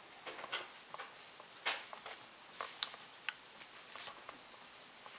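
Soft vinyl figure parts being handled and pressed together: scattered light rubbing and scuffing, with a couple of sharper clicks.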